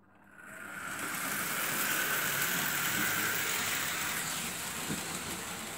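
Märklin H0 model of the brown SBB Ce 6/8 III 'Krokodil' running with a freight train on the layout's track: a steady whirring and rolling noise from motor and wheels that builds up about half a second in.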